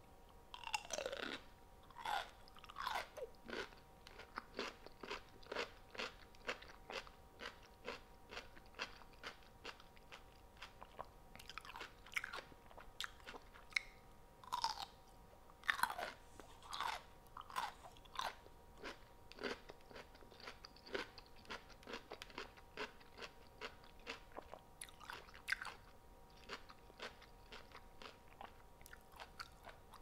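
A person chewing crunchy food close to the microphone: a run of sharp crunches about two a second, loudest around the middle, thinning out near the end.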